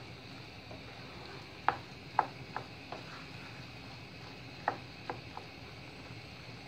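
Wooden spatula stirring rice in a non-stick frying pan, knocking lightly against the pan in short clicks: a group of them around two seconds in and another around five seconds in, over a faint steady hiss from the simmering pan.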